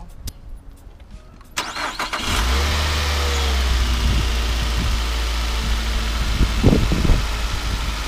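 2007 Nissan Altima's 2.5-litre four-cylinder engine being started: the starter cranks about a second and a half in, the engine catches within a second, and its revs fall and settle into a steady idle. The engine carries a cylinder misfire code, and its coil packs have just been swapped between cylinders to trace it.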